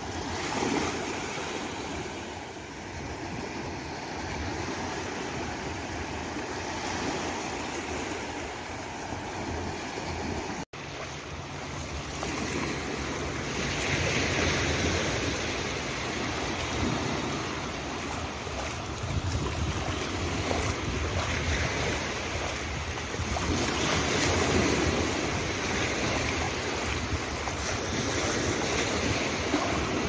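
Small sea waves breaking and washing up over a black sand beach, the wash surging and easing every few seconds. A momentary break in the sound about ten seconds in.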